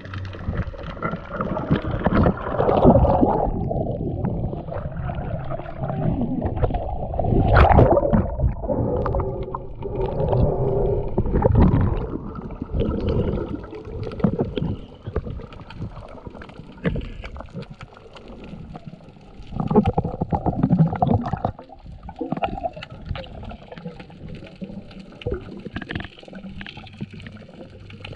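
Seawater sloshing and splashing close to the microphone, coming in irregular surges with muffled gurgling between them.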